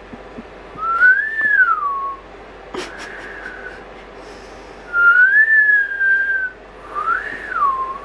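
French bulldog puppy whining through its nose: high, thin whistle-like cries that glide up and down, three long ones about a second or more each and a fainter short one between them.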